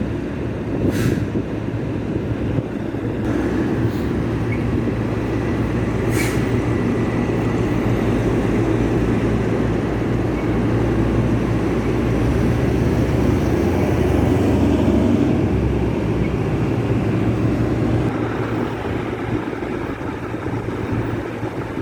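Heavy diesel truck engines rumbling at low speed, growing louder about two-thirds of the way through as one draws nearer, with a couple of short hisses early on.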